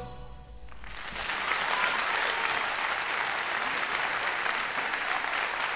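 The band's last low note dies away, then audience applause swells about a second in and carries on steadily.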